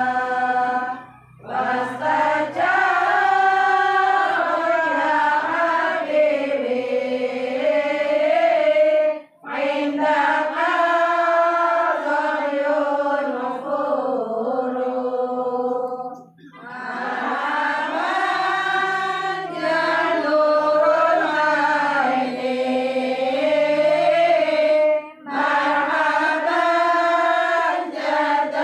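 A group of voices chanting Arabic devotional verses (sholawat) in unison, unaccompanied, in long melodic phrases. Short pauses for breath come about every seven to eight seconds.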